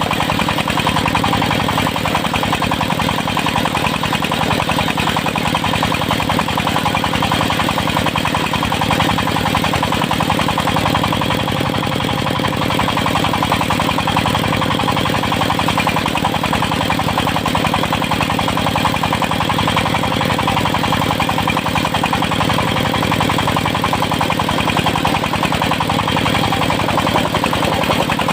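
Stationary engine of a circular-saw sawmill running steadily at an even pitch, with no clear rise or fall in load.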